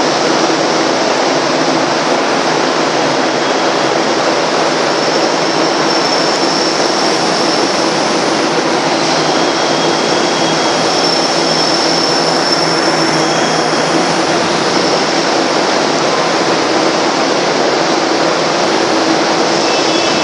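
Steady, loud mechanical roar with a low hum running under it and no change in level, like heavy machinery or ventilation on a ship's vehicle deck.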